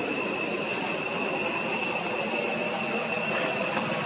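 Steady high-pitched drone of insects, held at one even pitch, over a constant low rushing noise.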